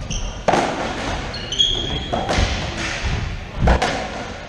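Racquetball rally: the ball smacks off racquet strings and the court walls several times, ringing in the enclosed court, with sneakers squeaking briefly on the hardwood floor twice.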